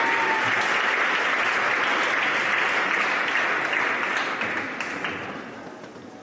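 Audience applauding steadily in a sports hall, the clapping dying away about five seconds in.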